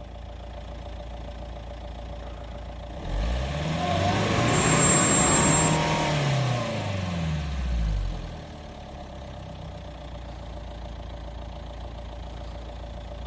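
Mercedes-Benz G-Class engine and exhaust, with a newly fitted muffler, idling and then revved once: the pitch rises for a couple of seconds and falls back to idle. A high whistle is heard at the peak of the rev.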